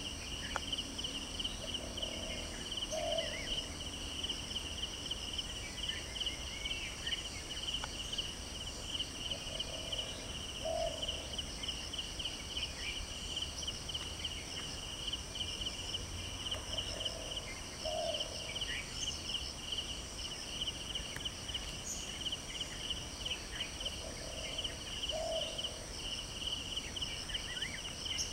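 Steady chorus of insects, a high pulsing buzz that never lets up. A short low two-part call sounds four times, about seven seconds apart.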